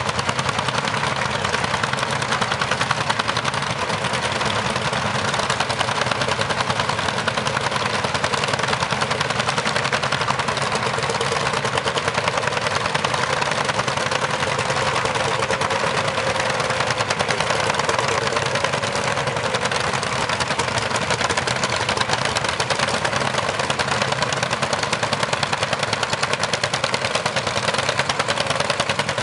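Several single-cylinder hot-bulb tractor engines of the Lanz Bulldog type running together, each with its steady, rapid popping exhaust beat, which blends into a continuous loud chugging.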